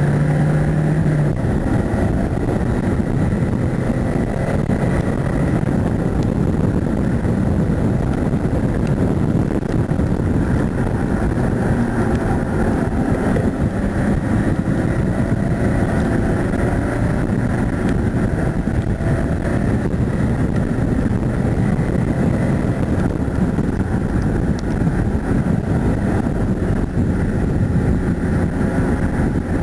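Car engine running hard under load, with steady road and wind noise.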